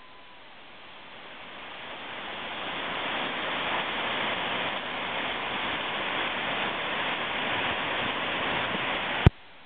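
Water pouring over a river weir, a steady rushing that grows louder over the first few seconds and then holds. Near the end a sharp click, after which the rushing cuts off suddenly.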